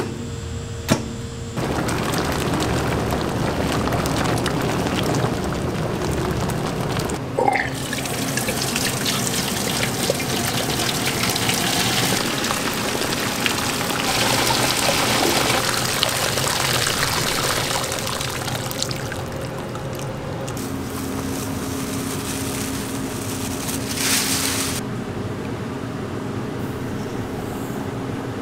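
Soy milk pouring steadily and splashing through a mesh strainer into a steel pot. A single click comes about a second in, and a low steady machine hum runs under the pour later on.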